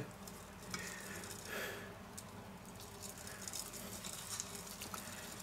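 Faint patter of dry rub shaken from a metal spice shaker onto raw chicken pieces, with soft squishing of hands rubbing it into the meat in a steel bowl.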